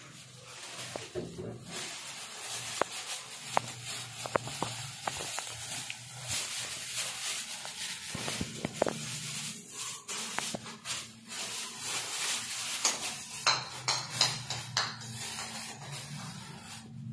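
Plastic bag rustling and crinkling as packets are handled and unpacked, with scattered sharp clicks and knocks of items being set down and picked up. A dense run of crackling comes about two thirds of the way through.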